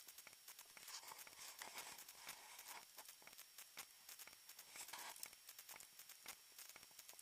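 Near silence: faint, scattered ticks and a soft rustle about a second in and again around five seconds in.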